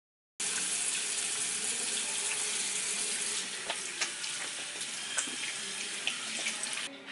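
Water running steadily from a sink tap, with a few small clicks and splashes. It starts suddenly about half a second in and cuts off just before the end.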